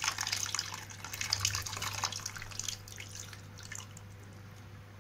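Tamarind water poured from a vessel into a pan of curry, splashing for nearly three seconds and then thinning to a few drips.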